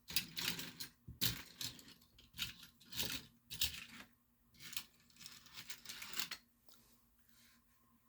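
Diecast toy cars and their plastic packaging being handled and pushed aside: a quick run of clicks, clinks and crinkles that thins out about six seconds in.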